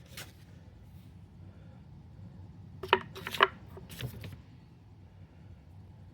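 Handling noise: a few short sharp clicks and rustles, loudest in a quick cluster about three seconds in, over a steady low hum.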